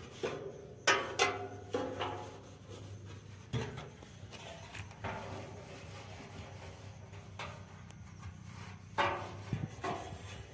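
A few sharp knocks and clicks, loudest about a second in and again near the end, over a steady low hum.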